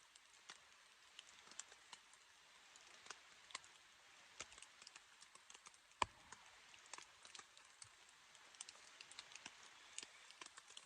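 Faint, scattered raindrops ticking irregularly on the fabric of a tent shelter, with one sharper knock about six seconds in.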